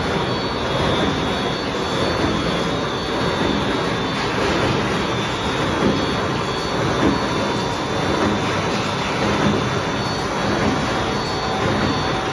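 Nine-blade paper straw making machine line running at speed: a steady, dense mechanical din with faint high steady tones on top.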